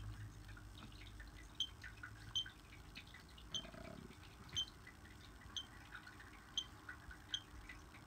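Short high beeps from a Gemini security-system keypad as its keys are pressed to scroll through the menu, about one a second.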